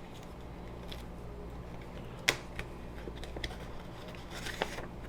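Light handling of CDs and their mailer packaging: a few small clicks and a brief rustle, the sharpest click about two seconds in, over a low steady hum.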